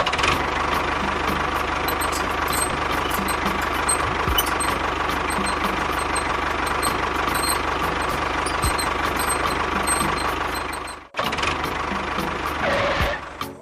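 An engine running steadily with a fast, even low knock. It cuts off abruptly about eleven seconds in, then starts again briefly.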